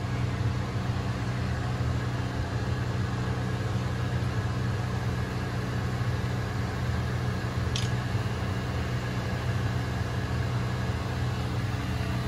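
Corded electric hair clippers buzzing steadily as they trim along a baby's hairline.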